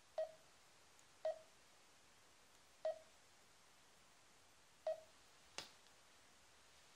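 Garmin dēzl 760 LMT sat-nav giving its short key-press beeps as its touchscreen menu buttons are tapped: four brief mid-pitched beeps at uneven intervals, then one sharp click about five and a half seconds in.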